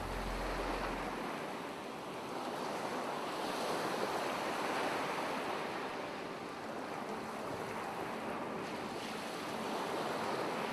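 Ocean waves breaking and washing up a shore, a steady rushing that swells and ebbs slowly. A low background drone fades out about a second in.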